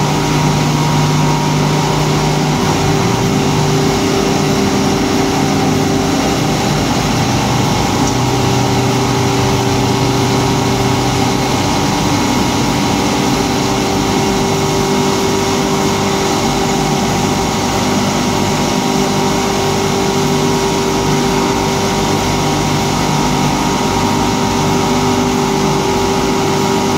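Paper tube polishing machine running steadily: a loud, constant mechanical drone from its electric motors and polishing rollers, with several steady hums. A low hum shifts about two seconds in and drops away near the middle.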